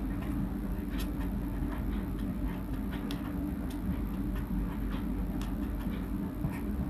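Marker pen writing on paper: a scatter of short, light scratching strokes and taps as letters are drawn, over a steady low hum.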